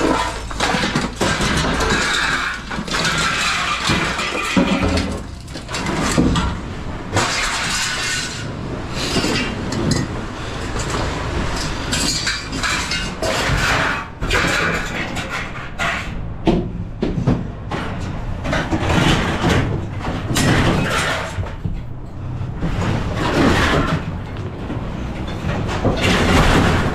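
Scrap being unloaded: repeated irregular clanks and crashes of metal and debris landing on a pile, over a steadily running engine.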